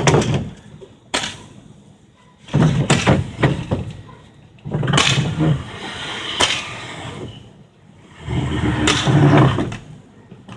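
Consumer fireworks going off: a series of sharp bangs spread across several seconds, some coming in quick succession.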